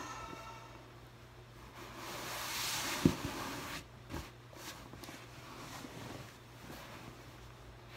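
A rush of air hissing for about two seconds, ending in a single sharp knock, then a softer knock about a second later, with faint rustling of clothes and balloon rubber being handled.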